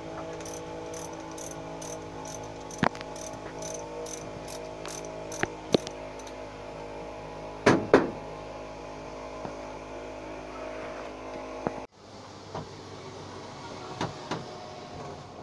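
Hand tools and engine parts knocking and clanking as the engine top end is worked on, with the two loudest metallic knocks about eight seconds in. Under it a steady hum, and for the first few seconds a high chirp repeating about twice a second.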